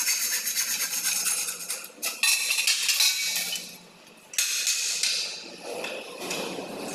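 A tool cutting into an aluminium frame section, a harsh metal scraping that comes in spells, pausing briefly about two seconds in and again around four seconds, with light metallic clinks of the aluminium pieces.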